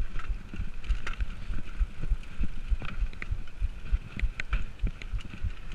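Mountain bike jolting over a rough, rocky dirt trail: a quick, uneven run of low thuds with short clicks and rattles from the bike.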